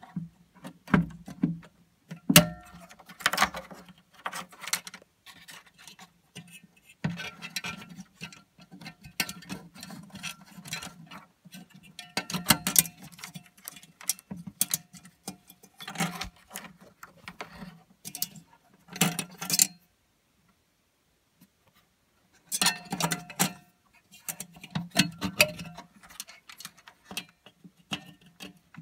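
Irregular clicking and knocking of the plastic plug and wire spring clip on a Mercedes W203 C-Class's H7 high-beam headlamp bulb as it is unplugged, unclipped and plugged back in by hand. About two-thirds of the way through, the handling stops for about three seconds.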